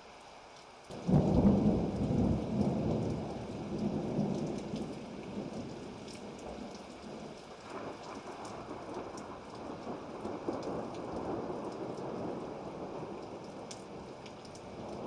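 Thunderstorm: steady rain, with thunder breaking suddenly about a second in and rumbling away over the next several seconds.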